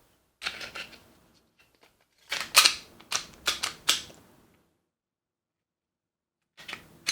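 Glock 45 pistol being handled and its action worked, sharp metallic clicks and clacks. A few clicks come about half a second in, a quick run of five or six louder clacks follows from about two to four seconds, and more clicks start near the end.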